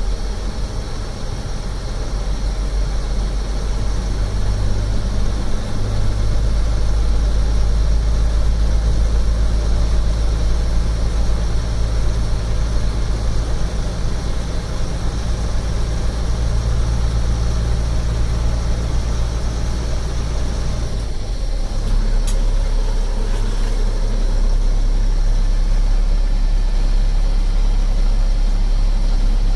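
DT466 inline-six diesel of a 1995 International 4900 running steadily, heard from inside the cab while the dump body is raised on its hydraulic hoist. The low drone changes character about two-thirds of the way through.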